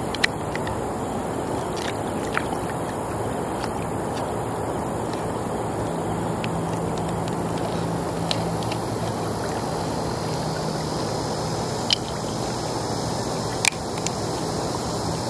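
Steady rush of flowing river water, with a few sharp clicks of a knife blade against a freshwater mussel's shell as it is pried open; the two loudest clicks come near the end.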